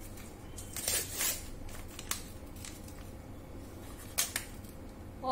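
Gift-wrapping paper crinkling and tearing as a small present is unwrapped by hand. There are a few short bursts: about a second in, at two seconds, and again near the end.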